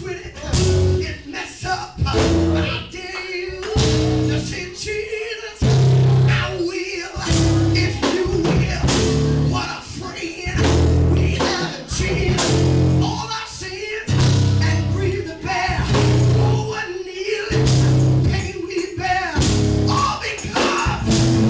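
Live church band playing up-tempo music: guitar and bass notes over a steady drum beat.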